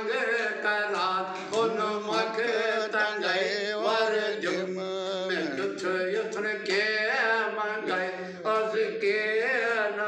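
A man singing a Kashmiri devotional song in a slow, chant-like style, his voice wavering and gliding in long phrases over a steady low drone.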